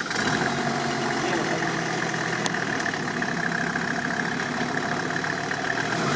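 Engine of a Mercedes-badged off-road prototype idling just after being started, a steady hum that grows louder near the end as the truck begins to move.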